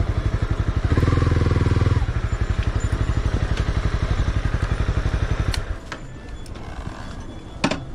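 Motorcycle engine idling with a fast, even beat, louder for about a second near the start, then cutting off abruptly a little over halfway through. A few sharp clicks follow.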